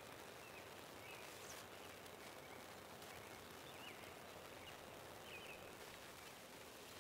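Quiet outdoor ambience: a faint steady hiss with a few short, high bird chirps scattered through it.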